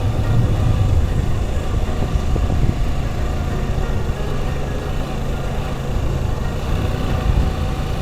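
Suzuki Gixxer SF motorcycle's single-cylinder engine running steadily while riding, a low rumble with rushing noise over it.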